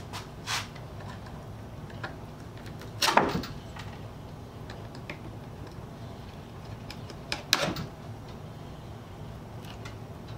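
Small wooden birdhouse being handled and shifted on a wooden workbench: a few separate wooden knocks and scrapes, the two loudest about three and seven and a half seconds in, with a lighter one near the start.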